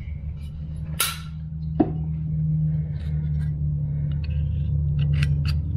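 A short spray from a WD-40 aerosol can about a second in, lubing a dry part inside a Holley 94 carburetor, over a steady low hum. A few light clicks near the end as the carburetor body is handled.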